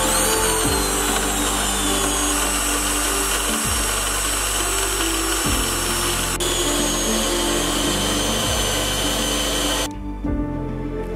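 Small electric motor spinning a fishing-rod grip on a threaded spindle while sandpaper is held against it: a steady whine with a sanding hiss, which cuts off about ten seconds in.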